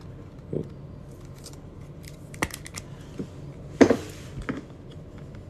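Light clicks and taps of rigid plastic top loaders and trading cards being handled on a table, about five separate taps with the loudest knock just before four seconds in.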